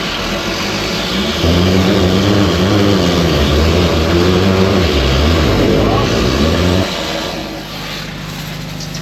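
Drain-jetting machine's engine running hard, its pitch wavering up and down. About seven seconds in it drops back to a quieter, steady lower note.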